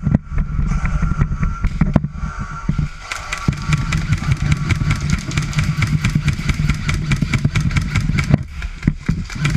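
Helmet-mounted action camera jostled while its wearer runs: a steady rumble of wind and motion on the microphone, with many irregular knocks and clatter from footfalls and gear.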